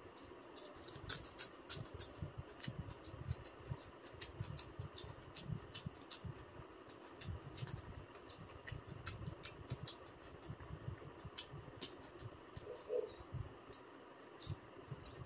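A person eating: chewing with frequent short wet clicks and smacks of the mouth and irregular soft low thumps, over a faint steady room hum.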